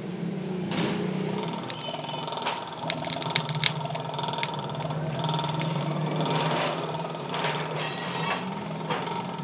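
A steady mechanical hum with a sharp run of metal clicks and clinks in the first few seconds, and a few more near the end.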